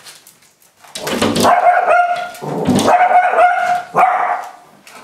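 King Charles spaniel barking and yelping at a cat through a glass door. A run of loud, drawn-out barks and yelps starts about a second in and breaks off near the end.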